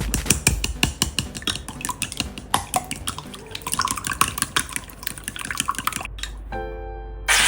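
Kitchen cooking sounds: a dense, irregular run of small clicks and taps from utensils and food being worked. Near the end these stop, a short pitched tone sounds, and a loud rushing noise begins.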